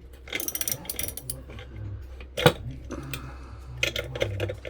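Metal hand tools clinking and scraping against a ceiling fan motor as it is pried apart for scrap copper. A flurry of small clicks comes in the first second, a sharp knock about halfway through, and more clicking near the end, over a low steady hum.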